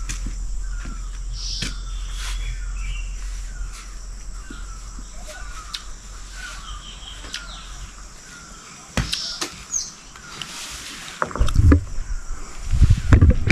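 Outdoor evening ambience: a short, high chirp repeats about once a second, with scattered faint clicks. Near the end, loud, uneven low rumbles of wind or handling on the microphone take over.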